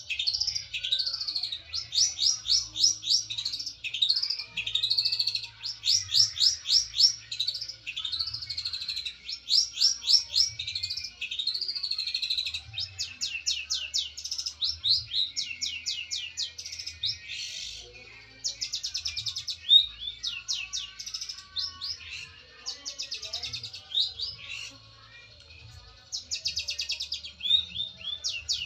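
Caged long-tailed shrike (cendet) singing a long, varied song of fast rattling note series and arched slurred whistles, full of mimicked phrases (isian). This is a fighting-mood song, the bird calling out to a rival.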